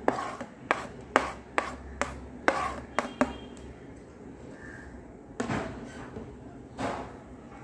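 Metal spoon knocking and scraping on a wooden chopping board as chopped onion is pushed off it into a bowl: a quick series of about seven sharp taps over the first three seconds, then two softer scrapes.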